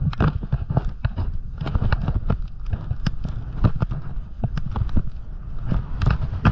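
Snowboard running over chopped-up, lumpy powder: an irregular, rapid clatter of knocks as the board hits the bumps in the snow, over a steady low rumble.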